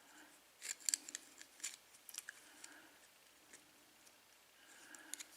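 Light metallic clicks and scrapes from a small tool working at the steel retaining clip on an American Lock padlock. A cluster comes in the first couple of seconds and a few more near the end.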